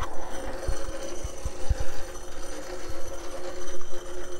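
Warn 8274 winch drum free-spooling, its clutch disengaged, as the synthetic rope is pulled off by hand: a steady whirring hum, with irregular low thumps of footsteps on grass.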